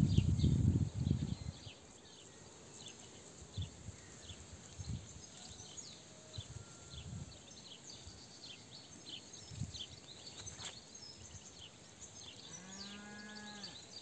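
Tall grass rustling close against the microphone for about the first second and a half, then quiet meadow ambience with small birds chirping throughout. Near the end a farm animal gives one drawn-out call lasting about a second.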